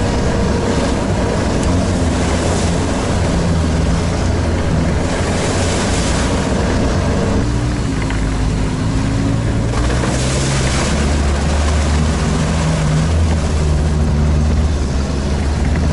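Sherp all-terrain vehicle's diesel engine running steadily under way, with its pitch shifting a little about halfway through. Water and mud splash up from the tyres twice, about five and ten seconds in.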